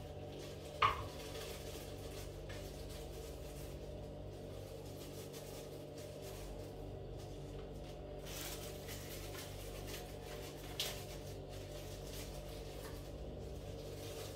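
Kitchenware clinking on a counter: a few sharp knocks, the loudest about a second in and another near eleven seconds, over a steady low hum.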